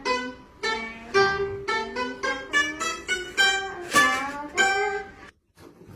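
Music on a plucked string instrument, most like a guitar: a melody of quickly picked notes, each struck sharply and dying away, which stops abruptly about five seconds in.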